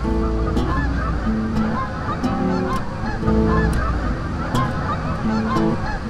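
A flock of Canada geese honking continuously, many calls overlapping.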